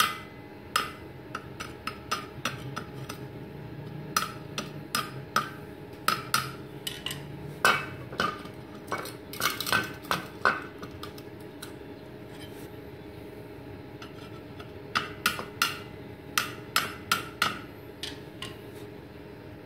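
Sharp metallic taps on a freshly welded steel plate, in quick runs of several taps with short gaps between runs. A faint steady hum from the switched-on inverter stick welder runs underneath.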